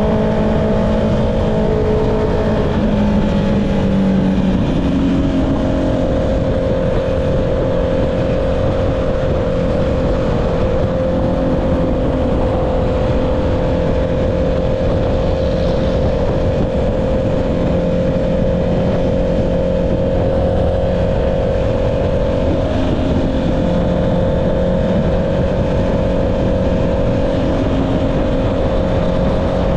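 Honda CB650R's inline-four engine running through an Akrapovic exhaust at a steady cruising pace, with wind rush over it. The engine note shifts once about four seconds in, then holds steady.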